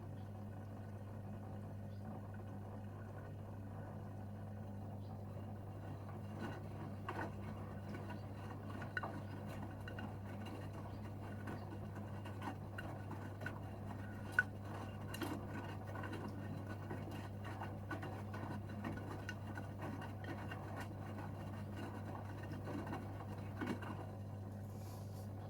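Gorenje UseLogic 65165 front-loading washing machine mid-wash: a steady low hum as the drum turns, with scattered light clicks and taps from the load tumbling, more frequent from a few seconds in.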